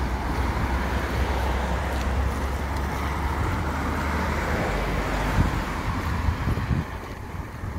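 Road traffic noise: a vehicle's steady tyre and engine rumble going by, fading away near the end.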